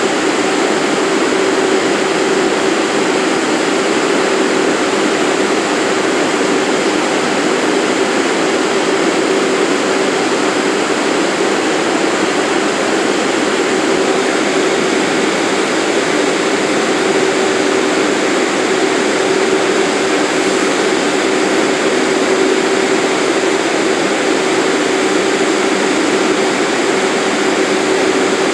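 Subway train standing at the platform with its doors open, its onboard equipment running in a steady loud hum with one constant drone.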